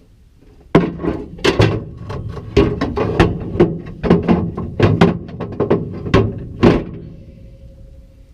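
A quick, irregular series of loud knocks and clunks from work on a combine, about twenty strikes in six seconds, stopping about seven seconds in.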